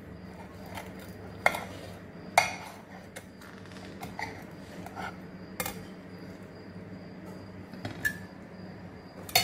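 Metal carving fork and knife clinking and scraping against a glass platter and a china plate while grilled chicken is cut and served: a few sharp clinks, the loudest about one and a half and two and a half seconds in, with quieter scrapes between.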